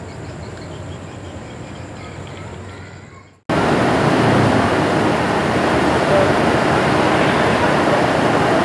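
Steady noise of a diesel train at a railway station, fading, then an abrupt cut about three and a half seconds in to a much louder steady rumble.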